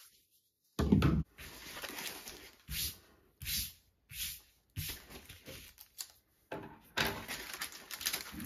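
Paper wrapper around a rolled diamond painting canvas rustling in short bouts as the roll is handled and unrolled, with a dull thump about a second in.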